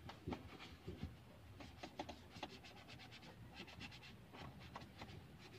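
Sponge pad rubbing across a plastic car dashboard in a run of faint, irregular scratchy strokes while spreading Armor All protectant.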